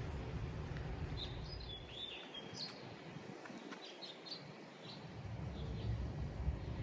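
Small wild birds chirping in short, high calls for a few seconds, over a low outdoor rumble that fades out in the middle and comes back near the end.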